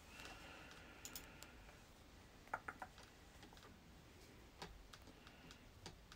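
Faint, scattered clicks of a computer keyboard being typed on. A quick run of three clicks comes about two and a half seconds in.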